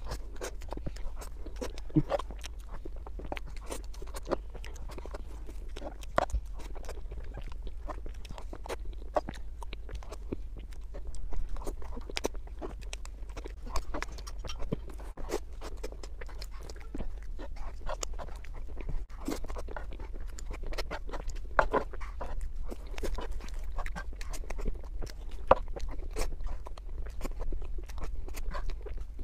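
Close-miked wet chewing, lip smacks and sticky mouth clicks of someone eating soft cream cake, a steady run of short smacking sounds.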